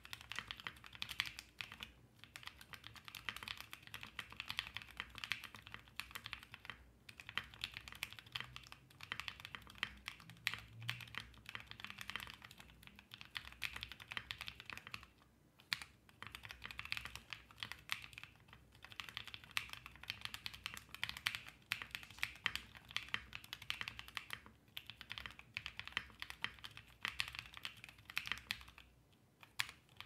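Steady fast typing on a Bakeneko65 custom mechanical keyboard with lubed KTT Rose linear switches, MT3 keycaps and lubed Cherry stabilisers, on an FR4 half plate in a gummy O-ring mount, on a 3 mm deskmat. The keystrokes run on without a break except for a few short pauses, about seven, fifteen and twenty-nine seconds in.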